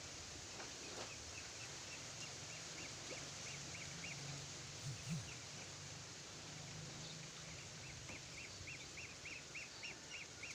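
Quiet outdoor ambience with runs of short high chirps repeating about three times a second from a small animal, over a steady low hum and background hiss, with one brief low sound about halfway.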